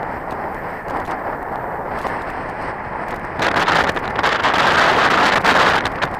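Wind buffeting the microphone, a steady rushing noise that grows louder and brighter about three and a half seconds in.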